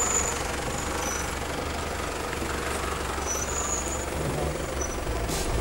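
Mitsubishi Shogun (Pajero) 3.2 DI-D four-cylinder turbodiesel running at low revs as the 4x4 crawls through mud; the engine note swells near the end.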